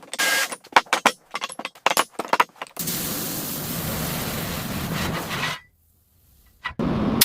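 A quick run of sharp metallic clanks and knocks, then about three seconds in a steady hiss of a sandblaster blasting cast iron. The hiss cuts off for about a second near the end and starts again.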